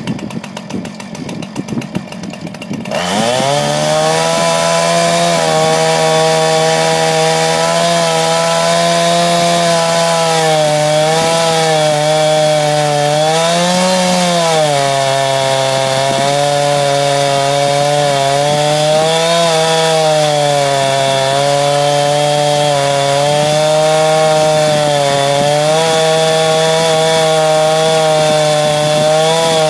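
A two-stroke chainsaw idles, then is opened up to full throttle about three seconds in. It runs at steady high revs as the chain rips lengthwise along a log, the pitch dipping and recovering slightly as the load changes.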